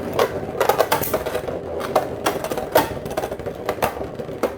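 Two Beyblade spinning tops, a 3D-printed one and a Hasbro Kerbeus, whirring and clashing in battle: a steady whir with irregular sharp clicks as they hit each other.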